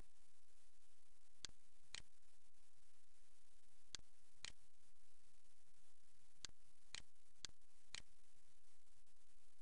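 Computer mouse button clicking about eight or nine times, in sharp single clicks spaced half a second to two seconds apart, several in quick pairs. Each click places an input point while digitizing an outline in embroidery software. A faint steady hiss lies underneath.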